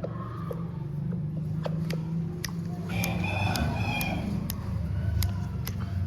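Aseel rooster crowing once, a call of about a second near the middle, over a steady low rumble and scattered sharp clicks.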